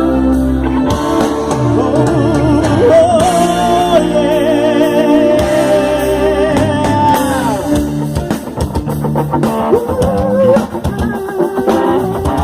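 Live band playing a rock-style gospel song: drum kit, bass, electric guitar and keyboards, with a held, wavering lead melody over the top.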